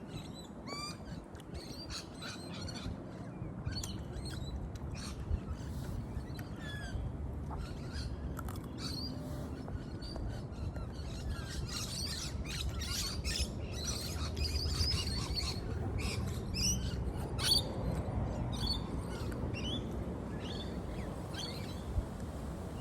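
Small birds chirping and trilling, many short calls overlapping one another, over a steady low rumble.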